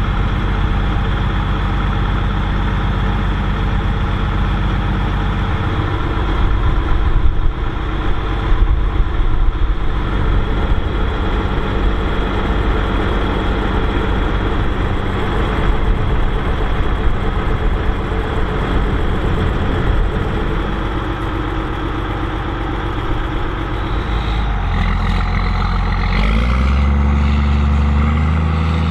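Case 2294 tractor's six-cylinder turbo diesel running steadily under load while pulling a big square baler, its note shifting lower and heavier about 25 seconds in.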